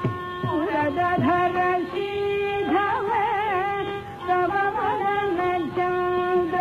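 Nadaswaram and tavil temple music: a reed melody holding long notes with sliding ornaments, over drum strokes that drop in pitch, a few a second.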